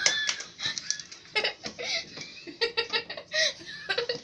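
People laughing in short, choppy giggles.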